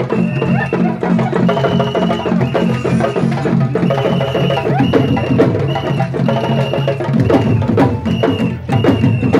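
Griot drum ensemble of Senegalese sabar drums playing a fast, dense rhythm, stick and hand strokes overlapping. A short high steady tone recurs about once a second over the drumming.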